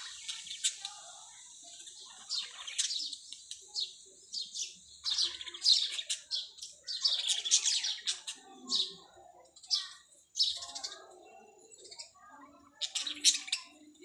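A flock of budgerigars chirping and chattering in quick, high-pitched calls, with brief pauses between bursts.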